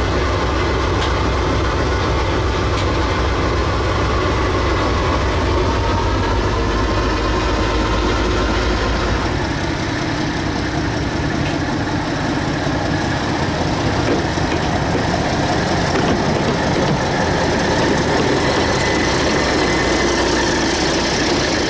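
Diesel engine of NZR Di class locomotive 1102 running steadily during a slow test run, heard first inside the cab as a deep, steady drone. About nine seconds in the sound changes to a trackside rumble as the locomotives roll slowly past on the rails.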